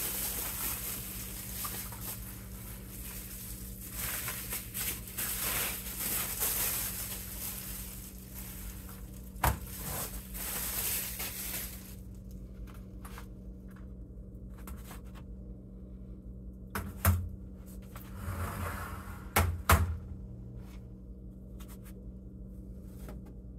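Bubble wrap crinkling and rustling as it is pulled off a honeycomb laser-bed panel, dense for about the first twelve seconds. After that come a few sharp knocks and thuds as the panel and its plastic sheet are handled, over a steady low hum.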